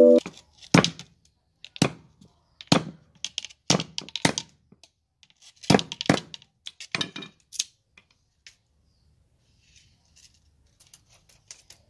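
Machete blade striking a bamboo strip against a wooden chopping block: about ten sharp chops, spaced roughly half a second to a second apart, over the first eight seconds, then a few faint taps near the end.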